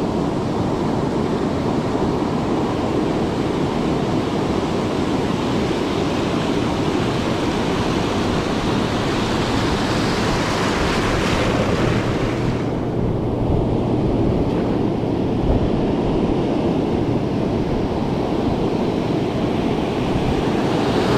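Pacific surf washing and breaking, with wind on the microphone. The wash swells louder toward the middle, then its hiss falls away suddenly about thirteen seconds in.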